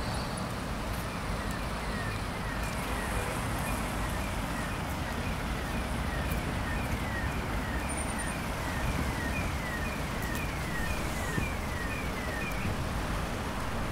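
Steady city-street noise with traffic and a low rumble. Through it runs a faint, repeated short falling chirp, just under two a second, from about a second in until near the end.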